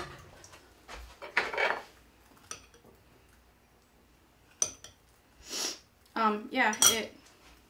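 Metal spoon clinking and scraping against a small metal sieve and bowl in scattered taps. A short burst of voice comes about six seconds in.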